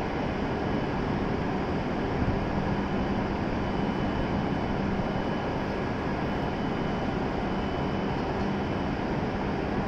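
W7 series Shinkansen train standing at the platform, its onboard equipment giving a steady whirring hum with a low tone, and a faint high whine that comes and goes.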